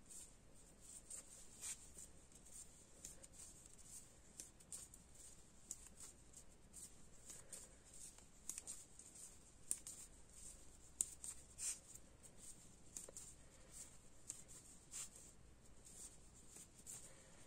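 Faint, irregular clicking of knitting needles with a soft rustle of yarn as stitches are purled, against near silence.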